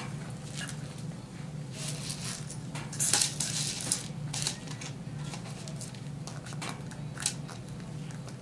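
Five-week-old Border Collie puppy chewing and nosing a hard plastic bottle: scattered clicks and crunches of small teeth and plastic, with a louder burst of scraping about three seconds in.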